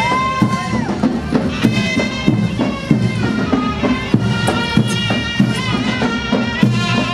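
Ottoman mehter (janissary) band music: a shrill reed melody with held notes over a steady beat of drums.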